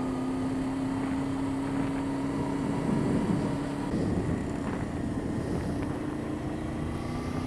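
Motorcycle engine running at a steady cruise, a constant hum over wind and road noise on the moving bike. About three seconds in, the steady tone breaks up for a few seconds, then settles again.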